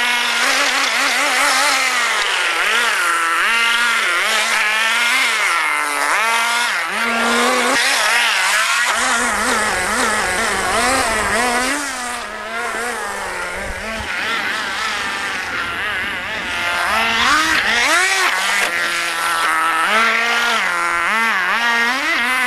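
Small nitro glow engine of a radio-controlled offroad buggy, revving up and down over and over as it is driven hard around the track.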